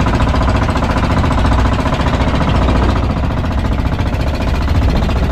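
Engine of a motorized outrigger bangka running steadily under way: a loud, fast, even chugging.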